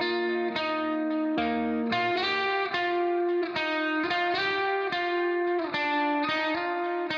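Background instrumental music: a melodic guitar-like plucked line with notes changing about every half second.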